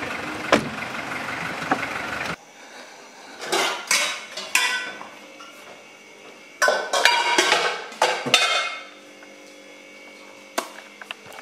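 Metal pots and pans clanking against each other as cookware is pulled out of a low kitchen cabinet, in two bursts of ringing clatter. Before it comes a steady background hiss that cuts off after about two seconds.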